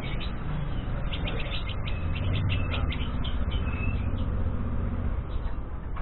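White-rumped shama (Murai Medan) giving a quick run of short, sharp chipping notes for about three seconds, ending on one brief held whistle, over a steady low rumble.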